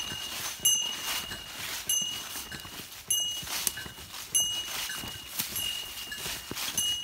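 Footsteps through dry grass and fallen leaves, about one step a second, each with a short high ringing tone in time with the walk.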